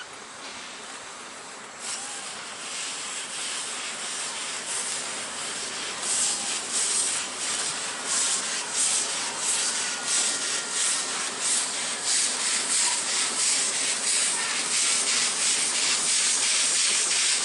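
NA-class 2-6-2T narrow-gauge steam locomotive 7A working a train: a hiss of steam at first, then steady exhaust chuffs, a few a second, from about six seconds in. It grows steadily louder as the locomotive approaches.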